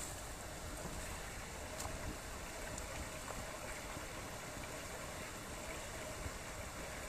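Small stream flowing, a steady wash of running water with a few faint clicks.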